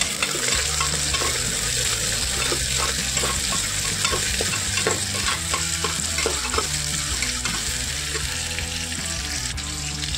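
Sliced onions sizzling in hot mustard oil in a pressure cooker, stirred with a metal ladle that scrapes and knocks against the pot many times.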